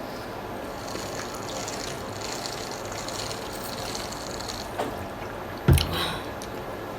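Liquid pouring into a cup for about three and a half seconds, then a single low thump about six seconds in.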